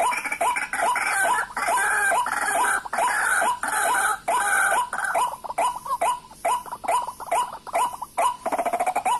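White-breasted waterhen calls: a rapid series of repeated hooked notes, about four a second, with higher notes over them for roughly the first half and a few short breaks later on.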